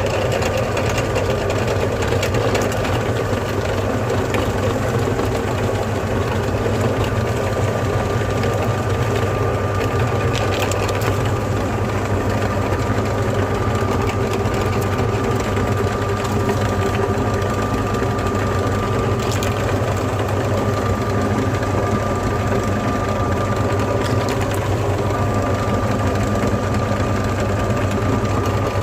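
Electric meat grinder running steadily while grinding chocolate, a continuous motor hum with a steady high whine.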